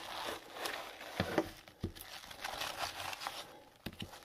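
Crinkling and rustling of trading cards in clear plastic sleeves and holders as they are pulled out of a fabric fanny pack, with a few light clicks as the holders knock together.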